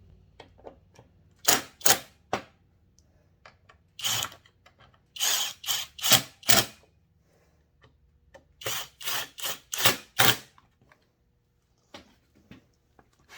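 Husqvarna 55 chainsaw's recoil starter being tested: the starter rope is pulled out and let wind back in several groups of short, sharp whirring strokes, with quiet pauses between them. The freshly rewound recoil spring is retracting the rope as it should.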